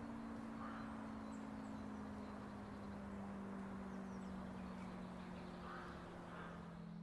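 ACA Hurricane electromechanical warning siren winding down at the end of its signal: a faint low tone with one overtone, sliding slowly and steadily lower. Birds chirp and call over it.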